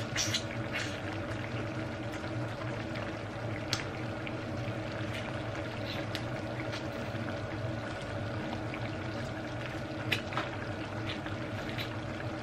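Seafood stew in coconut milk simmering in a pan on a tabletop cooktop: a steady bubbling hiss over a low hum. Scattered small clicks and smacks of someone eating with their hands break in here and there.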